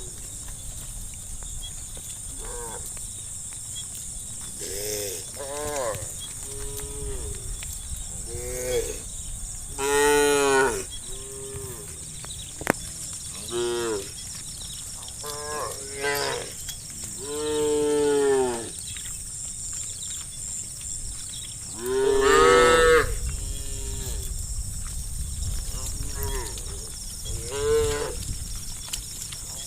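A herd of cattle mooing: many separate calls from several cows, some short and some long, drawn-out lows, coming again and again, over a steady high hiss.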